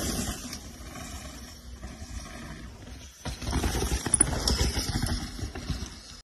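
Mountain bike tyres rolling fast over a loose dirt and gravel trail, with irregular knocks and rattles from the bike. The sound breaks off briefly about three seconds in, then comes back louder.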